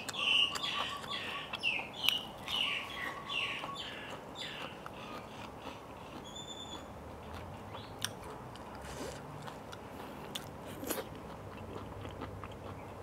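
A bird calling close by in a quick run of short falling chirps, about two a second, over the first few seconds. After that, scattered soft crunches and clicks of a person chewing and biting food close to the microphone.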